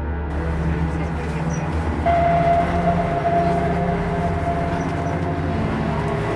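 Steady low mechanical rumble of a running vehicle, with a steady high whine joining about two seconds in.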